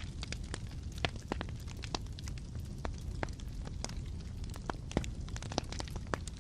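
Wood fire burning in a fireplace: a low steady rumble of flames with frequent irregular crackles and occasional sharper pops.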